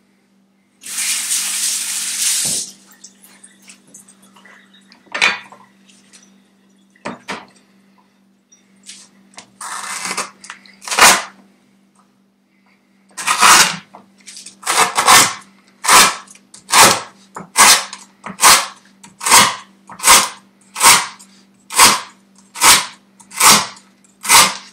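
A cleaver chopping a lemongrass stalk on a wooden cutting board: sharp, evenly spaced chops a little over one a second through the second half, after a few scattered knocks. About a second in there is a brief hiss lasting a second and a half.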